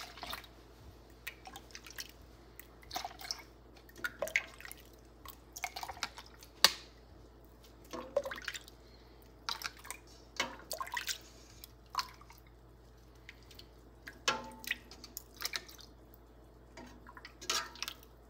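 Lukewarm boiled milk being scooped with a metal measuring cup from a steel pot and poured into a plastic yogurt tub: irregular splashes and drips, scoop after scoop, with one sharp knock about a third of the way in.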